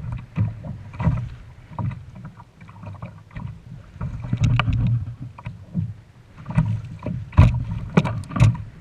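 Hooked pescadilla (weakfish) thrashing at the surface beside a kayak as it is hauled in: irregular splashes and knocks, with a few sharp knocks loudest near the end.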